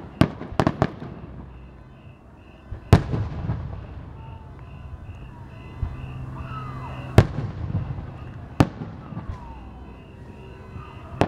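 Aerial fireworks shells bursting: sharp bangs, a quick cluster in the first second, a big one about three seconds in, then single bangs at about seven, eight and a half and eleven seconds, each trailing off in a low rumble. Behind them a car alarm pulses faintly and evenly.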